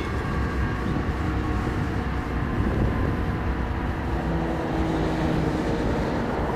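Steady low rumble of a distant vehicle, with a faint hum coming in about four seconds in.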